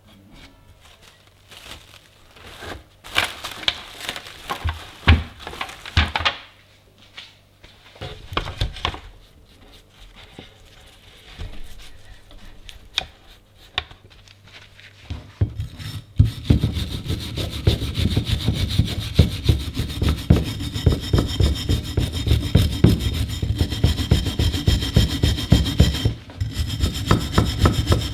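Hand wire brush scrubbing the softened old paint off the grinder's metal frame in fast back-and-forth strokes, starting about halfway through. Before that come scattered rustling and handling noises.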